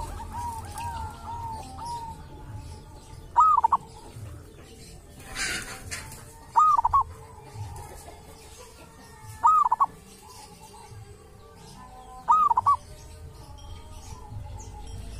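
Zebra dove (perkutut) cooing: a short clear phrase of a few quick rising-and-falling notes, repeated four times about every three seconds, with softer trailing coos at the very start. A brief hiss about five and a half seconds in.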